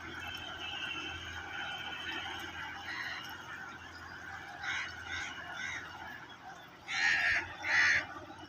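Waterfowl calling: a few short calls about five seconds in, then two loud honks near the end, over a steady background noise.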